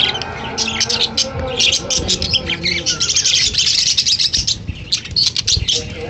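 Pet budgerigars chirping and chattering: a dense, nearly continuous stream of short, high chirps.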